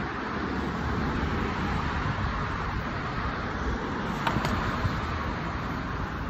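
Steady road traffic noise, a constant hiss over a low rumble, with a brief sharp tick about four seconds in.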